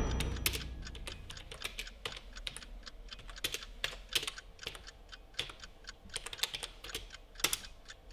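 Typing on a computer keyboard: irregular key clicks, several a second, as a short message is typed out.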